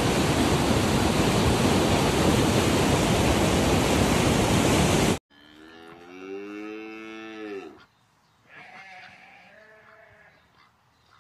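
Swollen, muddy river in spate rushing loudly, cutting off suddenly about five seconds in. Then a cow mooing in one long call of about two seconds that drops in pitch at its end, followed by a fainter, shorter animal call.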